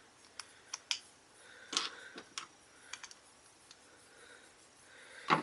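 Scattered small clicks and taps of plastic parts being handled: the push-in button caps of a plastic fidget spinner being fitted back over its R188 bearing, with a louder knock near the end.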